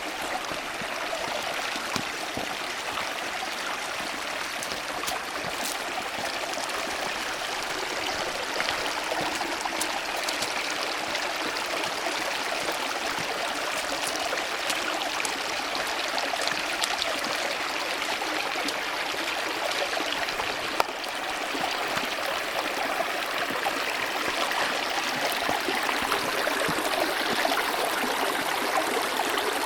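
A creek running: steady rushing and trickling of water over rocks.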